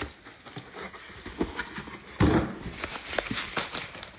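Cardboard trading-card boxes being handled, with scattered light taps and clicks, and one brief pitched sound of about half a second, about two seconds in.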